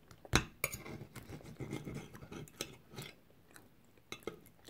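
Knife and fork scraping and clicking on a plate while cutting food, with one sharp clink of metal on the plate just after the start and a few lighter clicks near the end.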